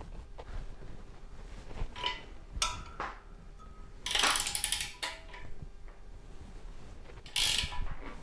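Ratchet wrench clicking in short bursts of strokes as it turns the driver nut of a threaded lead-screw bushing puller under heavy load, the longest run about four seconds in. The jackshaft bushing has not yet broken loose.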